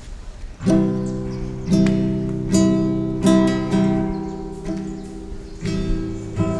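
Acoustic guitar strumming chords, starting about two-thirds of a second in, with a new strum roughly every second, each chord ringing on and fading before the next.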